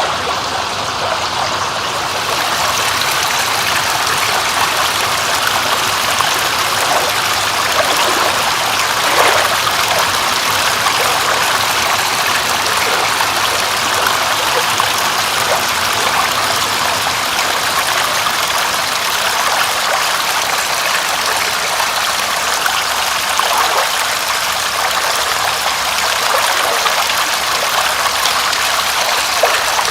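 Steady, even sound of water, a continuous hiss-like wash with faint drips in it, growing a little brighter about two seconds in.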